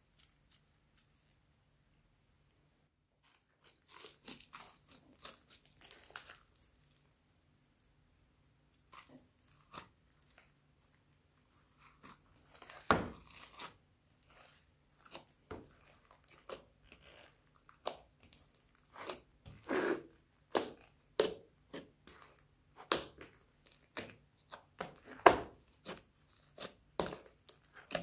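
Slime being kneaded and mixed by hand with foam beads and glitter: irregular crackling and sticky squelching, starting a few seconds in and growing busier and louder toward the end.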